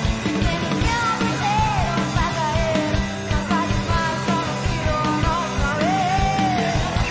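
Live rock band playing, with a Spanish-language vocal melody sung over a driving drum beat.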